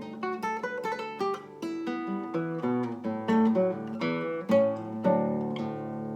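Acoustic guitar played fingerstyle: a quick run of plucked single notes and chords, each note ringing briefly and dying away.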